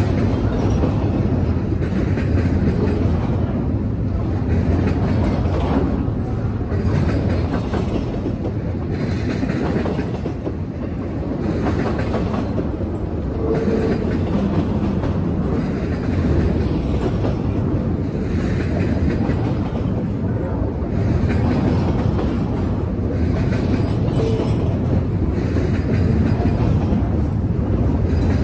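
Freight train rolling past: a steady rumble with the wheels clattering over the rail joints, repeating car after car.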